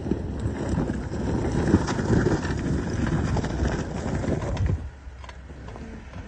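Jeep Wrangler's tyres crunching and crackling over icy snow and loose rocks as it comes down a steep trail. The crunching drops off suddenly about five seconds in.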